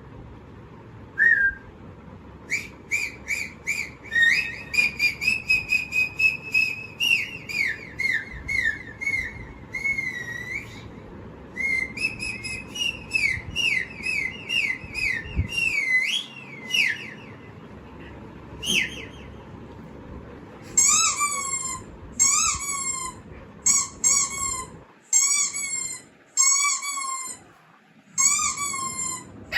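High whistled chirps and sliding notes in quick runs, then about ten separate rising-and-falling whistle-like calls at roughly one a second, heard over a low steady background hiss.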